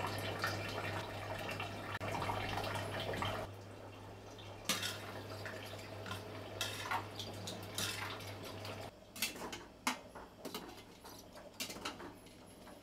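Kitchen food-preparation sounds: scattered clinks and taps of utensils against a bowl, with liquid dripping, over a steady low hum that stops about nine seconds in.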